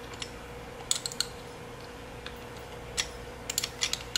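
Scattered light clicks and ticks of a small driver and screws as a brushless motor is screwed down onto a quadcopter arm, heard over a faint steady hum.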